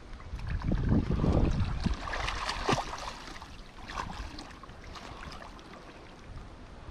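River water splashing and sloshing as a person wades and ducks under the surface, heaviest in the first two seconds, then lighter splashes and drips.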